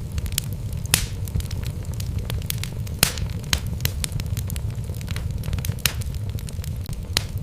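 Wood fire burning in a fireplace: logs crackling and popping with frequent sharp snaps, the loudest about one and three seconds in, over a steady low rumble of the flames.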